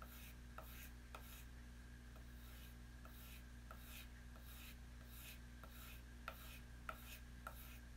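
A knife blade being stropped by hand: faint, soft rubbing strokes, about two a second, with light ticks as the blade is turned between strokes.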